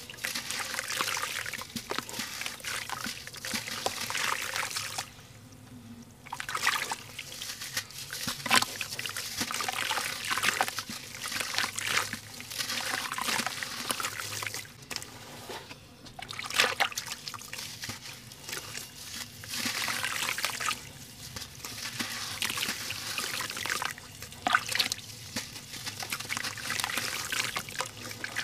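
Balls of sand-cement crumbled by hand over a metal pan of water: gritty crackling and crunching as the lumps break, with sand trickling and splashing into the water. It comes in bouts with two short pauses.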